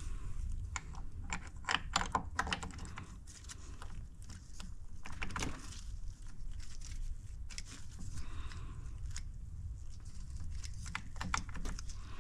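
Irregular light clicks and taps of small metal parts and hand tools being handled and fitted during engine assembly, with a steady low hum underneath.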